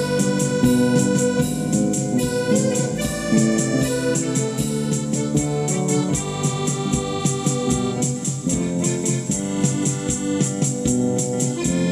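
Background music on a keyboard, organ-like in sound, playing held notes and chords that change every second or so.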